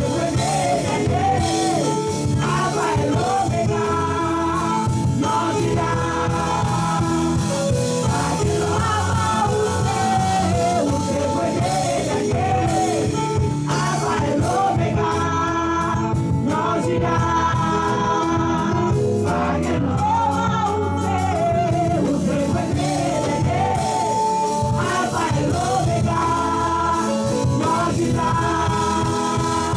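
Live gospel worship song: a woman singing lead into a microphone over a band with keyboard and guitar, with a steady beat.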